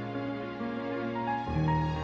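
Slow instrumental music of long held notes. A new, stronger low chord comes in about one and a half seconds in.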